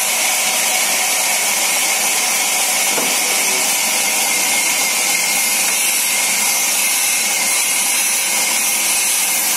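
Old vertical band sawmill running with a steady, high rushing noise as its blade saws through a log.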